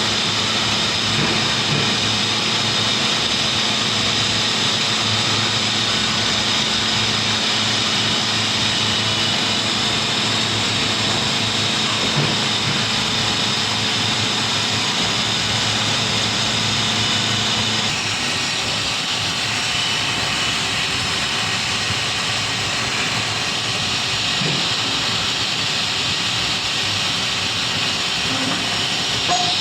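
Steady industrial machinery noise: a continuous hiss over a low hum. About eighteen seconds in the hum drops out, the tone changes and the level falls slightly. There is a brief knock near the end.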